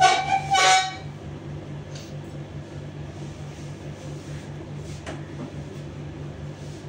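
A vehicle horn honks twice in quick succession at the very start, over a steady low hum.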